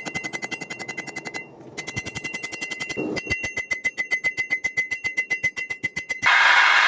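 Rapid, evenly spaced hammer blows on steel, about ten a second, each with a high metallic ring. There is a short pause about one and a half seconds in. Near the end the strikes stop and a loud steady rushing noise starts.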